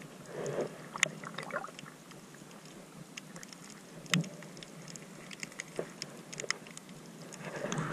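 Muffled underwater sound picked up by a submerged action camera: a low wash of moving water with scattered small clicks and ticks, and a soft knock about four seconds in.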